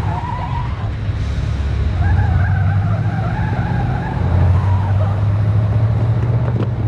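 SUV engine running hard as the vehicle pulls away, with tyres squealing from about two seconds in until about five seconds in.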